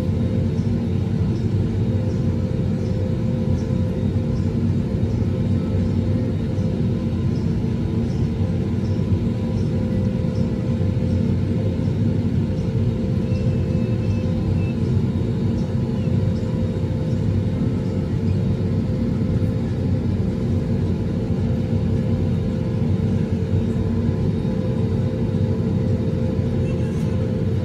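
Steady low rumble and hum inside the cabin of an Airbus A320 on the ground, with its engines running at idle, holding an even level throughout.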